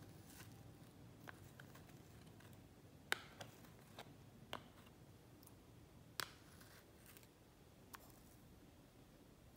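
Scattered light clicks and taps of a metal spoon against a plastic ice-cube tray and a small bowl while frozen minced garlic is scooped out. The sharpest clicks come about three and six seconds in, the rest fainter and irregular.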